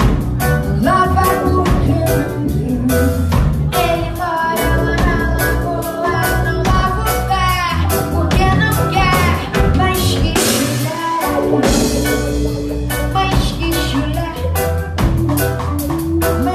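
Live band music: drum kit, keyboard and saxophone, with a woman singing into a microphone.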